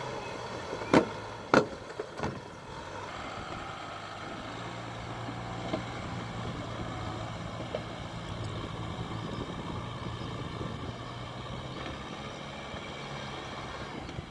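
Farm tractor's engine running steadily under load as it works its way through deep mud. Three sharp knocks come about a second in, louder than the engine.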